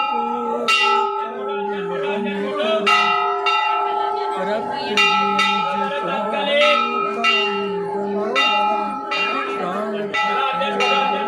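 Hindu temple bells rung over and over during worship, sharp strikes often coming in pairs with a steady ringing held between them; wavering voices are faint underneath.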